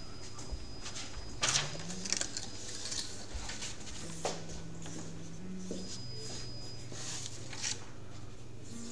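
Quiet room noise with a few scattered soft knocks and clicks, the loudest a pair about one and a half to two seconds in.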